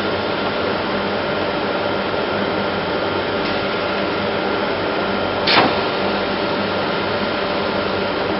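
ATC CNC router and its shop machinery running steadily with a hum of several steady tones, and one short, sharp hiss of air about five and a half seconds in.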